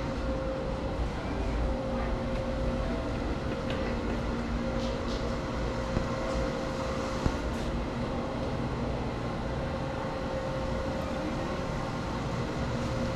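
Machinery running in a machine shop: a steady mechanical hum with a low rumble and a faint held tone, with a few light clicks.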